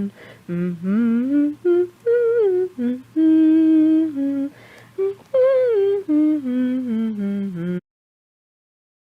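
A voice humming a short wordless tune of held notes and smooth slides, stopping abruptly about three-quarters of the way through.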